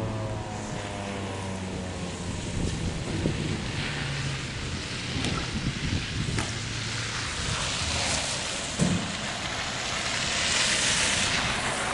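Federal Signal 2001-SRN/DC siren winding down, its falling tone fading out in the first second or two. After that comes a steady rushing noise that swells near the end, with a few crunches in the ice-crusted grass.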